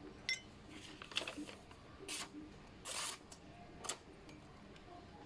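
Carbon-steel knife blade slicing through material in a sharpness test: a series of about five short, crisp cuts, roughly a second apart.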